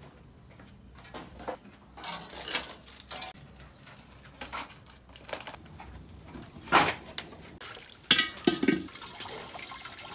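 Scattered knocks and clatter, with one loud knock about two-thirds of the way through. Near the end, tap water pours into a metal wok.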